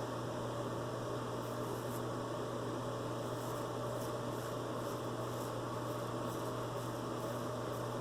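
Steady electrical hum with a hiss throughout. Over it, a series of faint, short scraping strokes of a straight razor cutting through lathered stubble.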